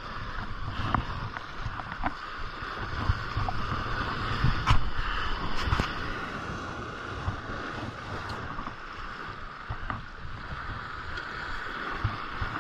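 Sea waves surging and washing over a rock ledge, with wind buffeting the microphone. A few sharp clicks sound about five and six seconds in.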